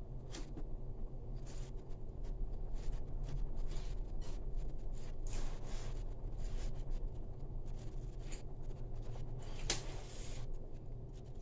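Eating by hand: fingers working and scraping rice against a plate, heard as scattered short scrapes and clicks with one sharper click near the end, over a steady low background hum.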